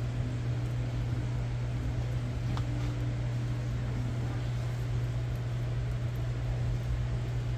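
Steady low mechanical hum with an even hiss, as from a running fan or motor.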